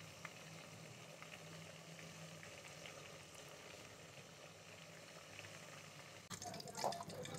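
Fish pieces deep-frying in ghee over a flame a little below medium: a faint, steady bubbling with scattered small pops. About six seconds in come a few louder clicks and scrapes as metal forks turn the pieces in the pot.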